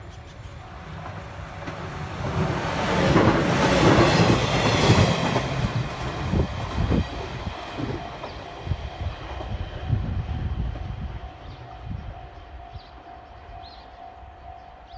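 JR 719-series electric train passing by: a rush of wheel and running noise that builds to its loudest about three seconds in, then a string of rhythmic wheel clacks over the rail joints that fades as the train moves away.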